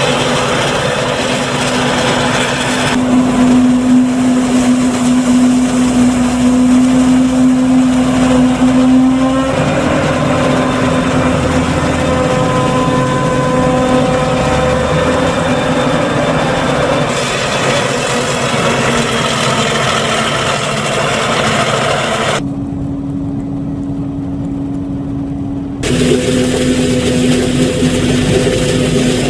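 Self-propelled forage harvester chopping standing maize, running steadily under load with a constant hum, with a tractor and forage wagon running alongside. The sound shifts abruptly several times and turns duller for a few seconds near the end.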